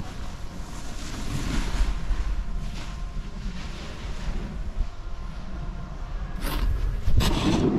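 Wind rushing over the microphone of a camera moving down a ski slope, mixed with the rasp of edges sliding and scraping on groomed snow. Sharper scrapes come about six and a half seconds in and again near the end.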